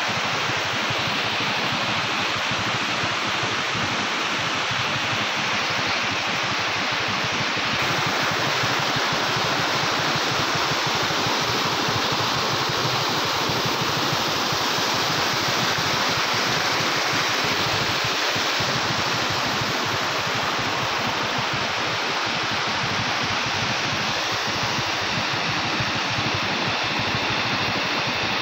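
Water pouring through a dam's open sluice gates and rushing over the concrete apron into the canal below: a steady, unbroken rush of falling water.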